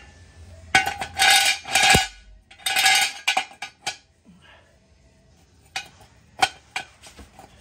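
Steel jack stand clanking and scraping as it is set in place: several loud metal clanks with a short ringing tone in the first three seconds, then a few lighter clicks.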